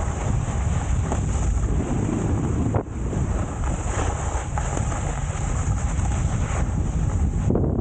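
Heavy wind buffeting the microphone during a downhill ski run, over a steady hiss of snow under the skis or board, with a brief dip about three seconds in.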